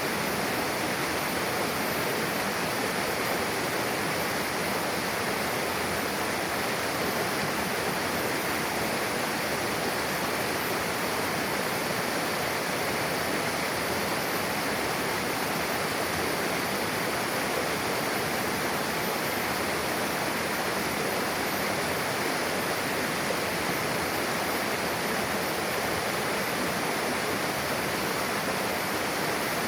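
Mountain river rushing steadily, an even, continuous sound of flowing water where two streams join.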